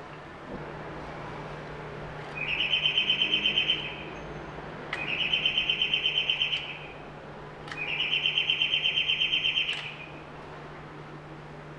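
Electric doorbell rung three times, each ring a high trilling tone lasting about one and a half to two seconds, with a click of the push button at some presses.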